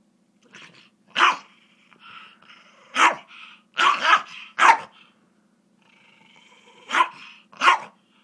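A silky terrier and a Rhodesian ridgeback puppy scuffling: about seven sharp barks and snaps in three clusters, over a faint, steady low rumble.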